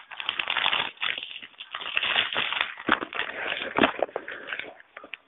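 A snack packet being opened by hand, its wrapper crinkling and crackling in irregular bursts of sharp rustles.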